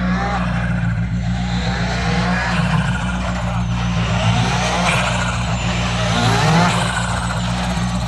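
Škoda Fabia Rally2 car's turbocharged four-cylinder engine running at low speed, its revs rising and falling several times as it creeps forward to a rally stage start.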